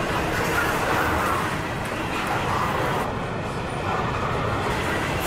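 Freight train rolling past: a steady, even noise of railcar wheels running on the rails.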